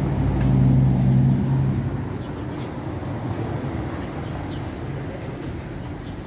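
Street traffic: a motor vehicle's engine running with a steady low hum, loudest in the first two seconds, then fading into the general rumble of traffic.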